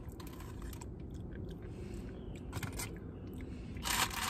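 Close-miked chewing of fried food, with small crunches and clicks of the mouth. A louder crackle comes near the end as the paper food box is handled.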